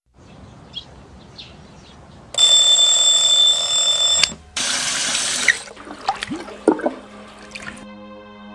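A bell alarm clock rings loudly for about two seconds and is cut off abruptly. It is followed by about a second of running water from a tap and some small knocks and clatter. Soft music begins near the end.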